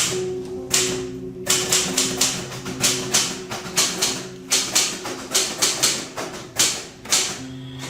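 Typewriter keys clacking in quick, irregular runs of strikes, over soft music with held low notes.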